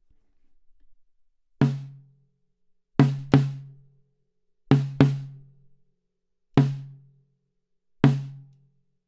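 A tom on a drum kit struck seven times at an uneven pace, three of the hits in quick pairs. Every hit is at the same low pitch and rings out for about half a second.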